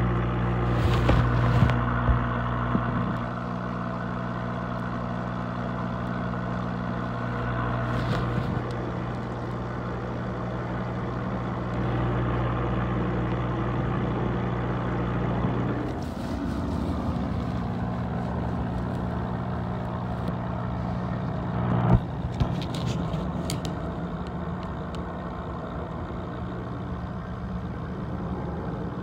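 Steady low mechanical hum with a buzzing edge, changing slightly about halfway through, with a few brief knocks, the loudest about 22 seconds in.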